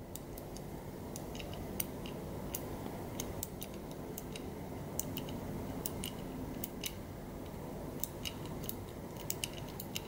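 Small, irregular clicks from the number wheels of a brass Master Lock three-wheel combination padlock as they are thumbed round one number at a time. The shackle is held under tension while each wheel is run through, feeling for the number that catches in order to crack the code.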